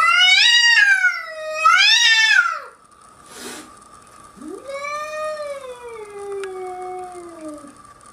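Domestic cat yowling: two long drawn-out calls, the first wavering up and down in pitch, the second starting about four seconds in and sliding slowly downward. A short burst of noise comes between them.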